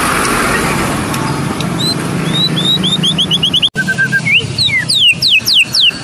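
White-rumped shama (murai batu, Medan type) singing a rapid, varied song of clear whistled notes: quick runs of notes sweeping downward and strings of short rising notes, breaking off for an instant a little before four seconds in. A steady low rumble of street traffic runs underneath.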